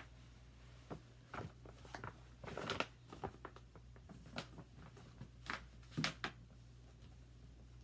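Handling noise as cross-stitch thread and supplies are put away: scattered light rustles and taps, with a denser rustle about two and a half seconds in and two sharper ones near the six-second mark, over a low steady hum.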